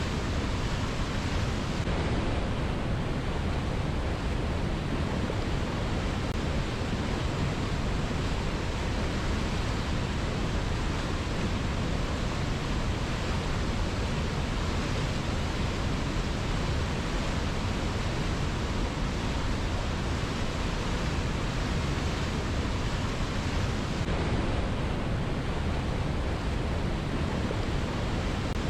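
Fast-flowing river rushing steadily, a dense, unbroken wash of water sound with no separate splashes or other events.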